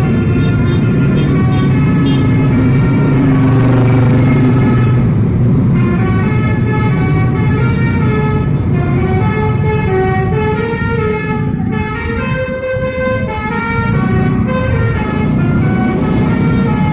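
Telolet horn, a multi-tone melodic air horn of the kind fitted to Indonesian buses, playing a quick string of stepped notes like a tune, with a low rumble underneath.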